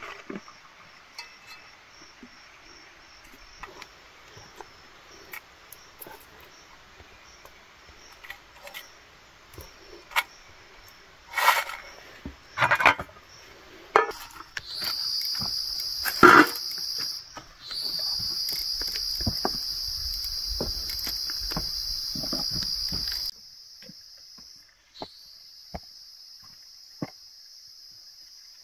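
Insects buzzing in a steady high-pitched drone, faint at first, then swelling loud about halfway through, holding for several seconds and dropping back near the end. A few sharp knocks and clatters come through the middle, the loudest just after the buzz swells.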